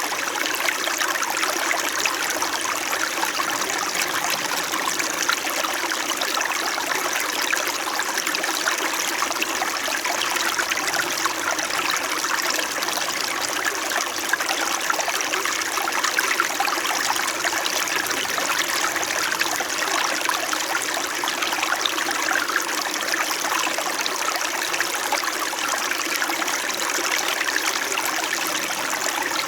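Small mountain stream in winter, its water flowing and trickling steadily over rocks with a gentle, continuous babble.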